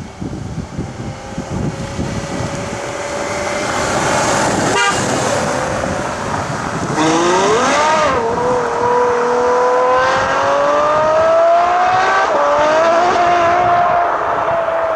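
Ferrari F12 Berlinetta's V12 engine driving up at a steady note, then accelerating hard away. The engine note climbs steeply, drops briefly at each of two upshifts and climbs again, then fades as the car pulls off.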